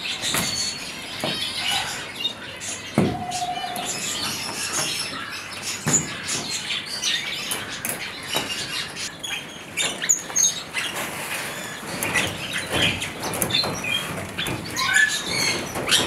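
Many small aviary birds chirping and twittering, with a few knocks and rustles from wire mesh netting being handled over the frame.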